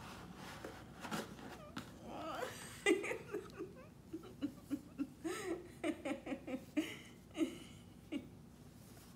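A woman laughing in a long run of short, repeated giggles from about two seconds in until about eight seconds in, with light rustling of paper and cardboard as a gift box is opened.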